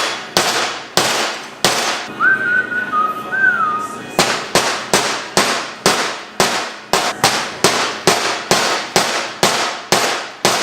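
Rapid repeated hammer blows on metal, about three strikes a second, each with a short ring, which fits a tool being driven into stripped steering-wheel screws to free them. The blows pause briefly about two seconds in, with a short two-note whistle, then resume.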